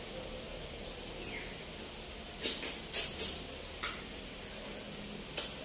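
A person sucking and slurping at a boiled fish head while eating with the hands: about six short, sharp sucks, four of them close together in the middle and one near the end, over a steady faint hiss.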